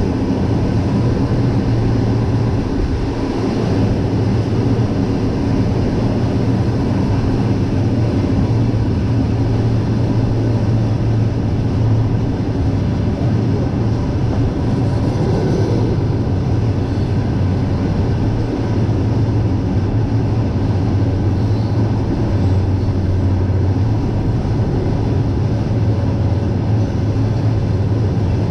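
Steady running noise of a passenger train rolling slowly, heard from a carriage window: a constant low hum under a rumbling rush.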